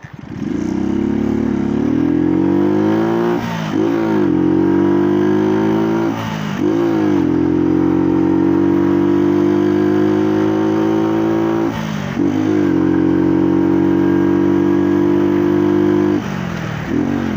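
Small motorcycle engine pulling away and accelerating, its pitch climbing through the gears, with three gear changes. Each change is a brief dip and then a fresh rise. Near the end the throttle is eased off and the engine drops quieter.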